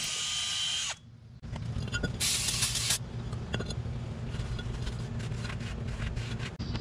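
Small electric power tool with an abrasive disc whining steadily against the inside of a brake rotor's hat, cleaning off rust, then stopping about a second in. After that a low steady hum, a short hiss and scattered light clicks and scrapes.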